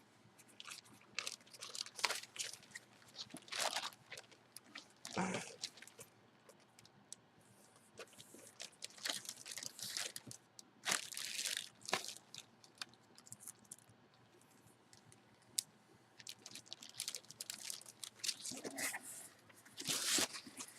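Plastic packaging crinkling and rustling as a jersey is handled, in irregular bursts with short quiet gaps.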